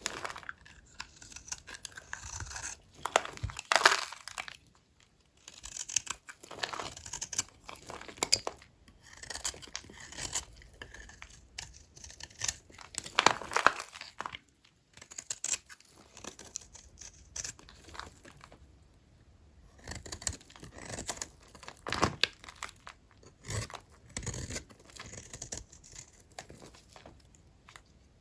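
A knife cutting into small, dry, old bars of hotel soap: irregular scraping, crumbling cutting strokes with short pauses between them. The loudest strokes come about four and thirteen seconds in.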